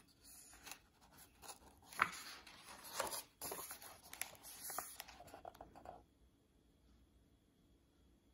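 A page of a hardcover picture book being turned and smoothed flat by hand: paper rustling and sliding, with two sharper snaps of the page about two and three seconds in, stopping about six seconds in.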